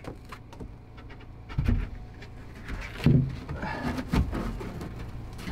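Coosa composite floor panel being set down into its recess in a boat deck: a few dull thuds and knocks with small clicks as it is placed and pressed into position. The loudest thud comes about one and a half seconds in.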